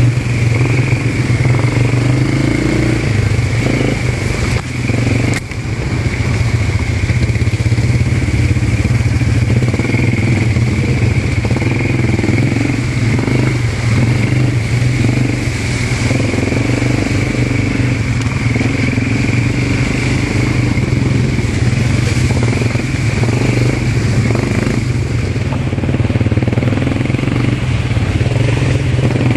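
ATV engine running steadily under way, with a brief dip in level about four to five seconds in.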